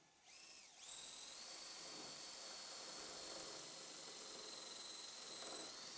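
Power drill with a 5 mm bit drilling screw holes through an aluminium base profile into the floor. The motor starts in a short spurt, spins up about a second in to a steady high whine, and stops near the end.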